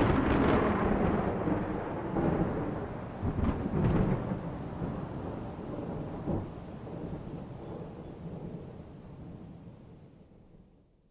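Thunder clap rumbling and slowly fading, with louder swells of rumble about three to four seconds in and a smaller one around six seconds, dying away to nothing near the end.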